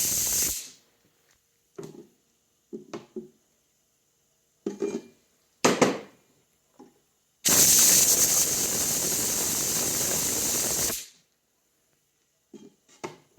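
Compressed CO2 hissing out of a SodaStream quick connect cylinder as excess gas is vented to bring an overfilled cylinder down to weight: one hiss cuts off about half a second in, a few light clicks and knocks follow, then a second steady hiss of about three and a half seconds starting a little past halfway.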